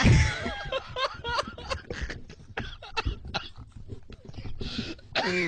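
Men laughing into studio microphones in short, broken bursts.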